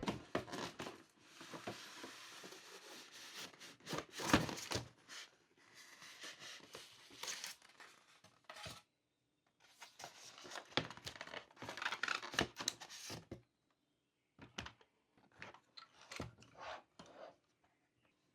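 Crinkly material being torn and handled in three long rustling stretches, with one sharp knock a little after four seconds in, then a few light clicks and taps near the end.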